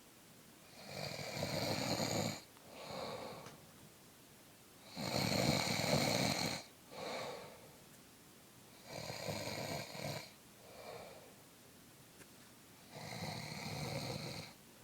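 A man snoring heavily in deep sleep: four loud, rasping snores about four seconds apart, each followed by a shorter, softer one.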